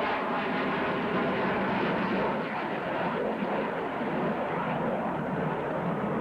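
Airplane flying by at an airshow, a steady engine rush that eases off somewhat in the second half as it moves away.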